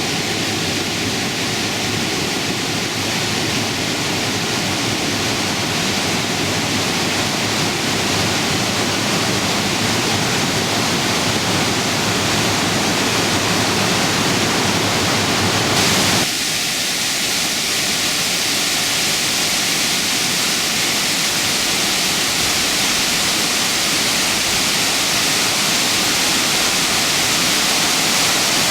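Waterfall in full flow after heavy rain, a steady rush of falling water. About sixteen seconds in the sound changes abruptly in tone, as from one shot of falling water to another.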